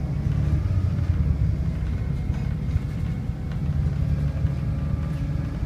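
Volvo B7RLE single-deck bus heard from inside the saloon while under way: the six-cylinder diesel and ZF automatic gearbox give a steady low drone with a faint thin whine above it.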